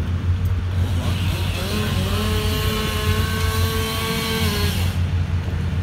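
Machinery running with a steady low hum. A motor whine rises about two seconds in, holds level, then drops away near the end.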